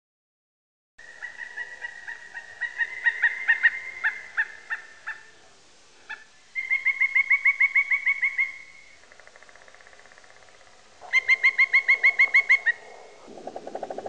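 Woodpecker calling: loud runs of about a dozen rapid, evenly spaced notes, repeated three times with short gaps, and a lower, quicker series near the end.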